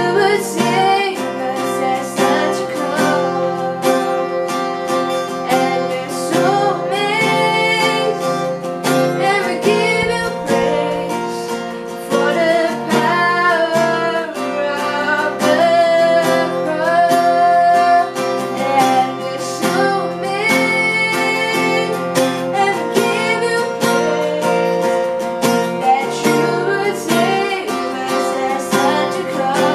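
A woman singing a worship song while strumming chords on an acoustic guitar.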